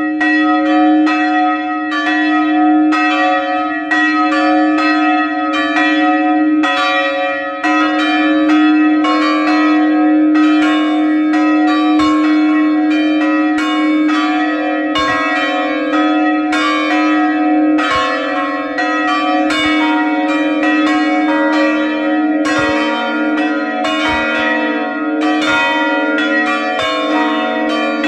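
Plenum of the church's five swinging bronze bells rung together in retrograde swing, heard at close range inside the belfry: overlapping clapper strokes several times a second over a steady ringing hum. The peal fills out about a third of the way in, and a lower tone joins about two-thirds of the way through.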